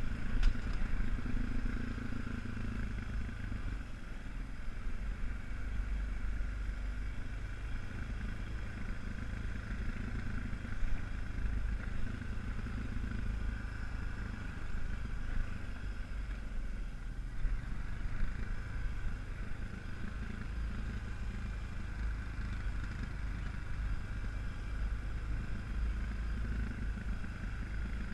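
ATV engine running steadily, with an even low rumble and no clear revving.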